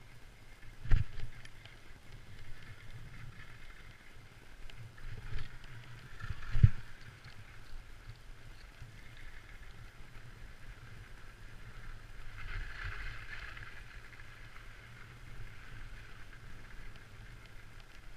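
Skis running downhill over packed snow, heard through a GoPro: a steady low rumble with a hiss of the skis on snow that swells for a couple of seconds past the middle, and two sharp knocks, one about a second in and one near seven seconds.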